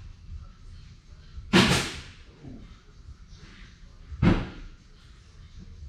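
Tesa tape being ripped off the roll in strips: two sharp rips, about a second and a half in and again about four seconds in, each dying away quickly.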